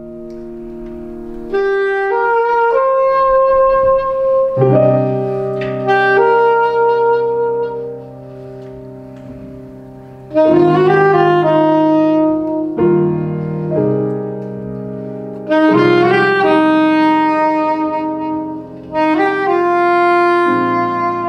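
Soprano saxophone playing a slow melody of held notes over piano chords struck every few seconds.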